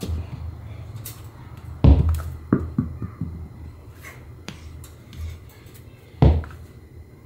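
Tennis balls thrown against a foam wedge mat and bouncing on the gym floor: dull thuds, the loudest about two seconds in followed by a few smaller bounces, and another strong thud near the end.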